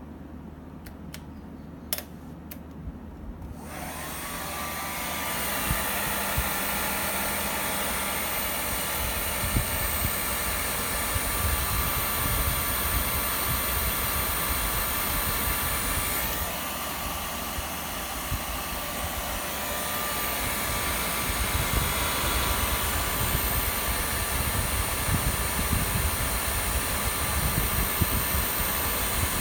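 A small electric blower switches on a few seconds in, after a couple of clicks, and runs steadily with a rush of air and a whine. It eases briefly about halfway through, then picks up again.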